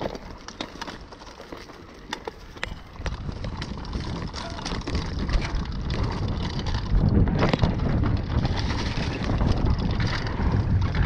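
Mountain bike rolling down a loose dirt trail: tyres crackling over dirt and stones, the bike rattling, and wind rushing over the microphone. It grows louder and rougher about three seconds in as the bike picks up speed.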